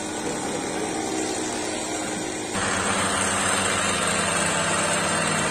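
Small model-aircraft engine running steadily. It comes in louder, with an even hum, at a cut about two and a half seconds in; before that only a fainter, rougher noise is heard.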